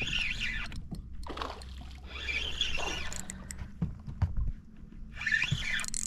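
Water sloshing and splashing against a small aluminum boat, in several irregular swishes with a few light knocks, over a faint steady low hum.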